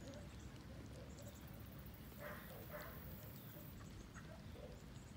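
Faint, short animal noises over low background noise, the two clearest a little over two seconds in and about half a second later: a strange sound that the person filming wonders might be a chicken.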